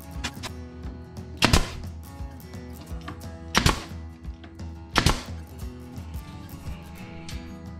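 A staple gun firing three sharp shots into the wooden nest box, roughly two seconds and then a second and a half apart, with fainter taps between, over background music.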